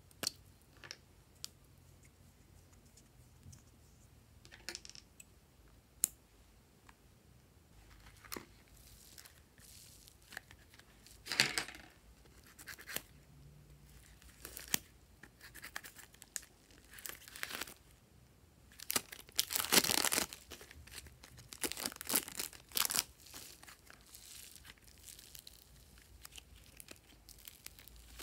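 Scissors snipping through a plastic zip bag and the plastic crinkling, in short irregular bursts that grow busier in the second half, the longest about two-thirds of the way through. A few light clicks and taps come before that.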